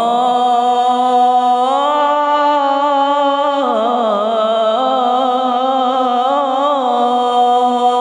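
A man's solo melodic Qur'an recitation (tilawah), sung as one long held note with no break. It rises in pitch at the start, wavers with ornaments and dips about halfway, then settles and holds.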